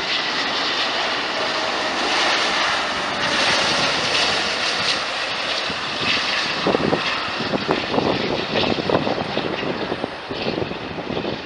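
Airbus A380 on landing approach passing close, its four jet engines giving a loud steady rushing roar with a faint whine; a rougher crackling rumble builds in the second half.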